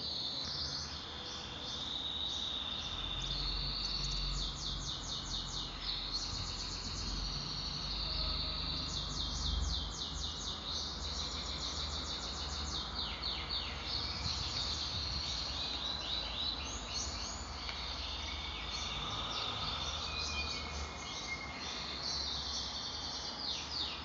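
Birds chirping in rapid high-pitched trills that come and go, over a low steady rumble.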